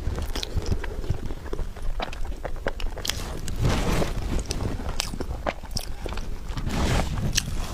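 Close-miked chewing of soft tiger skin cake roll: wet mouth clicks and smacks, with louder bites about four seconds in and again near the end.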